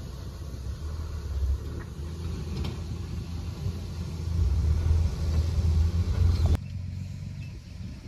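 Heavy diesel engine of a tipper dump truck running with a deep, steady rumble while its raised bed unloads dirt, growing louder a little past the middle. About six and a half seconds in it drops suddenly to a quieter engine rumble.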